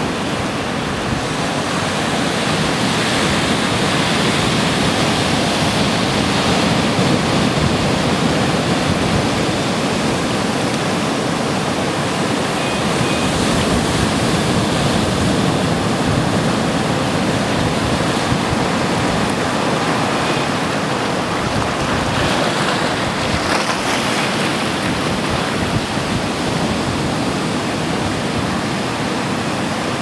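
Ocean surf breaking on a rocky shore and washing over rock shelves and pools: a steady rushing of water that swells and eases with the waves.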